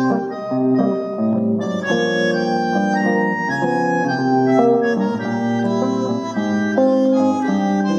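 A small instrumental trio playing live without pause: overlapping held chords and melody notes that change several times a second.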